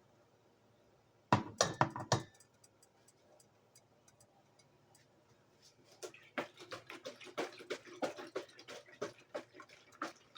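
Dishes and utensils clinking: a short burst of sharp knocks just over a second in, then from about six seconds a long run of quick, irregular clinks and taps.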